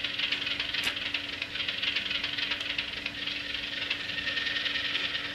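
Class 37 diesel engine sound from an ESU DCC sound decoder, played through the small onboard speaker of an N gauge Graham Farish model. It is a thin, rattling idle clatter with a steady hum under it, in the engine shutdown cycle.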